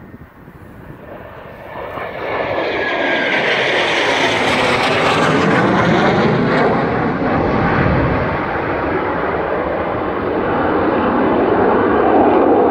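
Jet roar of two Blue Angels F/A-18 Hornets flying past, swelling about two seconds in and staying loud, with a sweeping, shifting tone as they pass overhead.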